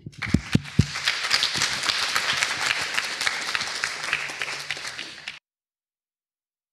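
Audience applauding, a dense patter of many hands clapping that cuts off abruptly about five seconds in.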